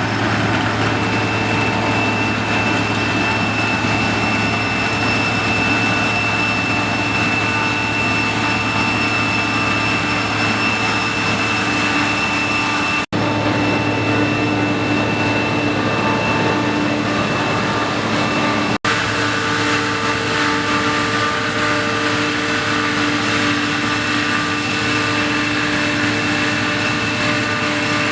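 Deutz-Fahr TopLiner 8 XL combine harvester running steadily while cutting wheat: a steady engine and machinery drone with a high, constant whine over it.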